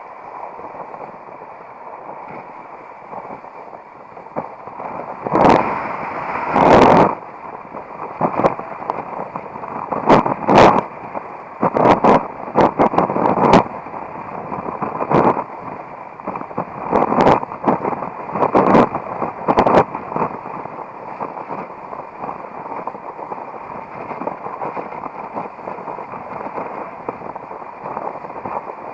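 Strong wind buffeting the camera microphone: a steady rush with crackling, distorted blasts of louder gusts between about five and twenty seconds in.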